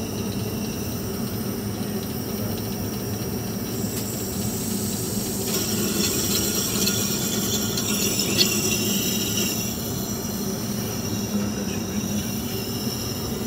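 Steady drone of an airliner cabin heard inside the lavatory. About five seconds in, the washbasin tap runs water into the sink for about four seconds, then stops.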